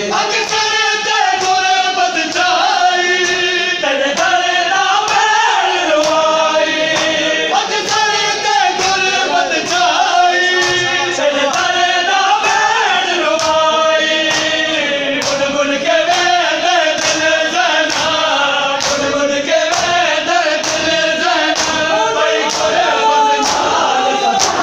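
A noha, a Shia lament, sung by a male reciter with a crowd of men singing along in chorus, over a steady rhythm of sharp slaps from hands beating bare chests in matam.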